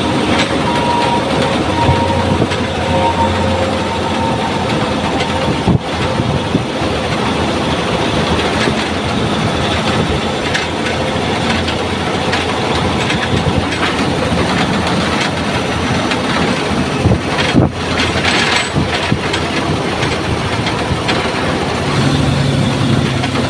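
Heavy diesel machinery running steadily during container loading, with two sharp knocks, one about a quarter of the way through and one about three quarters through.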